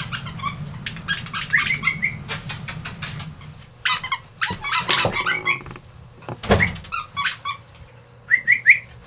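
Squeaky dog toy squeezed in quick, repeated squeaks, ending with three short rising squeaks.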